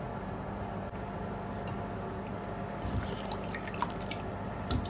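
Pot of chicken in hot water bubbling on the stove: a scatter of small liquid pops and drips starting about three seconds in, over a steady low hum.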